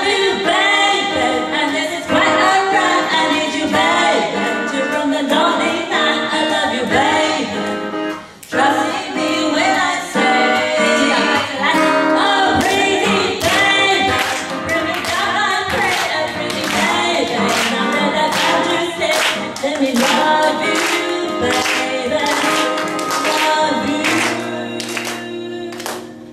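Two women singing a song through microphones, accompanied by a strummed acoustic guitar.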